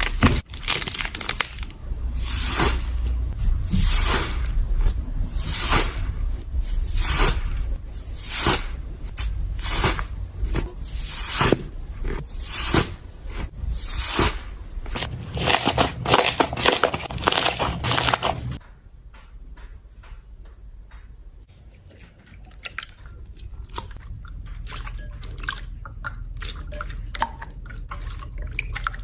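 Slime being worked, crackling and crunching densely in quick irregular strokes; about two-thirds of the way through it cuts to a much quieter, softer slime squishing with small sticky clicks.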